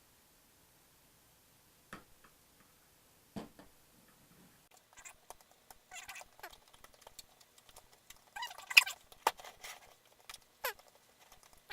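Two light knocks, then wet, sticky squelching and crackling clicks of a glue-and-shaving-foam slime mixture being squeezed and worked, irregular and loudest about nine seconds in.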